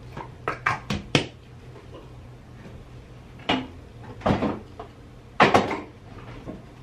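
Household handling noise: a quick run of about five clicks and knocks in the first second or so, then three louder knocks and rustles about halfway through and near the end.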